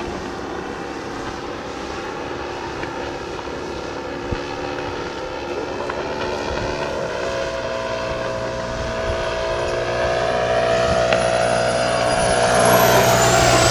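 Radio-controlled airplane's motor and propeller droning in flight, growing louder toward the end as it comes closer, with a high whine rising in pitch over the last couple of seconds.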